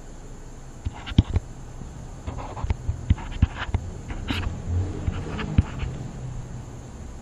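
Scattered light clicks, taps and short scratches of handwriting on a computer as digits are written out, over a steady low hum.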